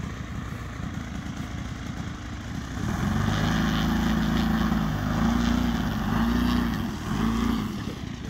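A 120-inch Bushmaster radio-control model plane's engine idling with an uneven chug, then opened up about three seconds in. It runs at higher, wavering revs for several seconds as the plane taxis from the grass onto the runway, and drops back toward idle near the end.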